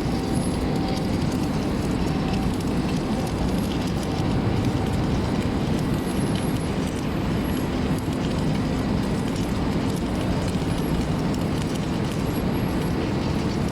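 Steady, low-pitched running noise of a narrow-gap submerged-arc welding machine and its workshop equipment at work.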